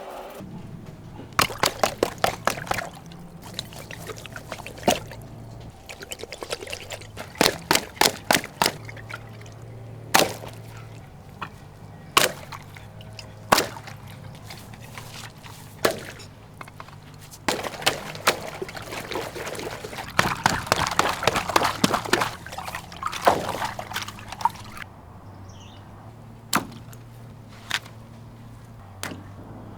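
Water pouring and splashing in short bursts of sharp sounds, with a longer, denser stretch of pouring about two-thirds of the way through. A low steady hum runs underneath.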